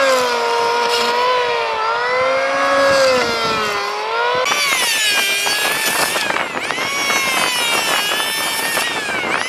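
Electric hand planer running under load as it shaves bark and wood off a round log, its motor whine sagging and recovering in pitch as the blades bite. About four and a half seconds in, the whine jumps higher in pitch and carries on.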